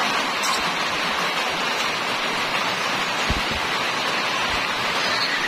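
Steady rain: an even, unbroken hiss. Two dull low bumps come about three and four and a half seconds in.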